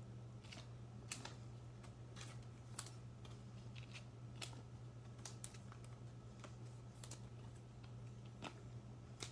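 Faint, irregular clicks and taps of trading cards being handled and sorted by hand on a tabletop, some in plastic sleeves, over a steady low hum.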